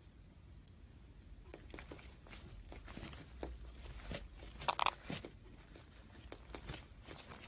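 Faint crinkling and scratchy rustling with irregular small clicks, starting about one and a half seconds in.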